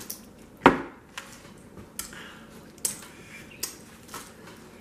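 Scattered sharp clicks and cracks of crab-leg shell being snapped and picked apart by hand, about five or six in all, with one louder knock a little over half a second in.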